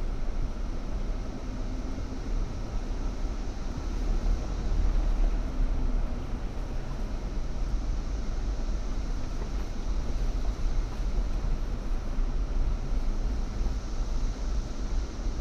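4x4 off-road vehicle's engine and drivetrain rumbling steadily as it drives along a trail, a little louder about four seconds in.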